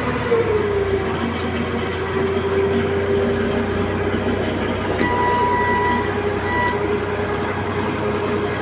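Heavy machine's diesel engine running steadily, with a whine that drops in pitch just after the start and then holds. About five seconds in, a high beep sounds twice, first for about a second and then briefly.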